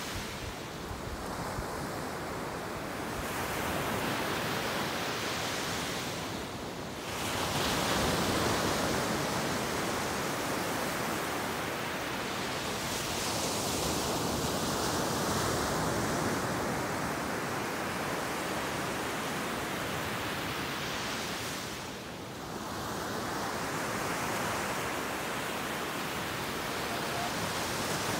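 Ocean surf breaking and washing up the beach: a steady rushing that swells and eases as the waves come in, dipping briefly about a quarter of the way in and again about three quarters of the way through.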